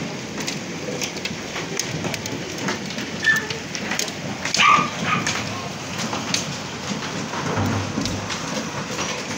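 Hailstones pelting the ground, roofs and window glass: a steady hiss with many sharp hits scattered through it. A short, louder sound stands out about halfway through.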